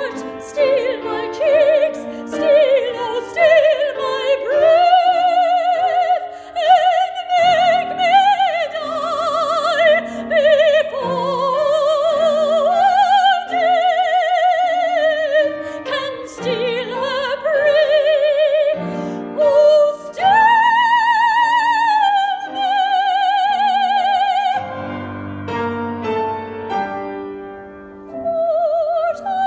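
Solo female operatic soprano singing with wide vibrato and long held notes, to piano accompaniment. Near the end the voice stops for a few seconds while the piano carries on, then the singing comes back in.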